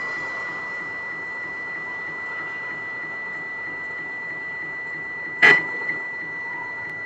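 Simulated CNC milling spindle sound from simulator software: a steady running whir with a constant high tone. A brief louder burst comes about five and a half seconds in.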